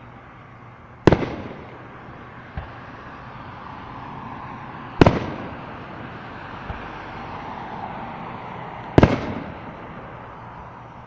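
Fireworks exploding, really loud: three big booms about four seconds apart, each trailing off in an echo, with a couple of smaller pops between them.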